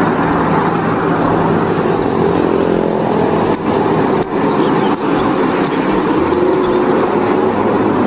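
Truck engine running with road noise, a steady drone with a few faint clicks near the middle.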